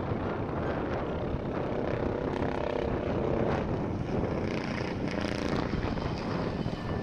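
Flying Bulls Bo105 helicopter flying a display overhead: rotor and turbine engine noise, with a whine that rises and falls in pitch as it manoeuvres.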